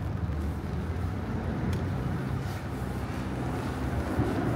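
A motor vehicle's engine running close by: a low, steady hum that grows gradually louder.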